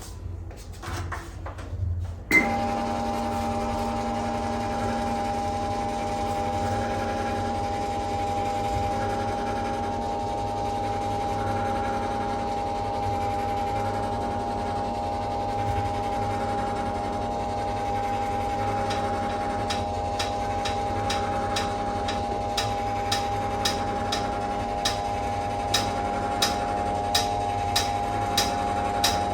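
NordicTrack treadmill's motor starting up about two seconds in and running with a steady hum. From about two-thirds of the way through, a sharp metallic 'ding' repeats about twice a second over it. This is the noise the treadmill makes while inclining or declining, which the owner puts down to loose incline-motor bolts and an unlubricated incline bar.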